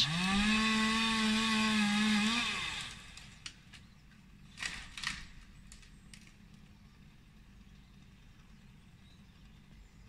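Petrol chainsaw running at high revs for about two and a half seconds; its pitch rises briefly before it drops away. A couple of faint knocks follow about five seconds in.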